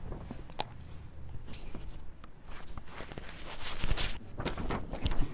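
Footsteps and handling noises as a man walks across the room and picks something up, with scattered clicks and rustles that are loudest about four seconds in.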